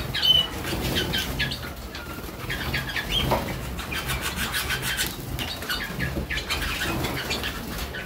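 Young Harzer Roller canaries bathing in a flight box: a steady busy flutter of wings beating in and around the bath, with short chirping calls.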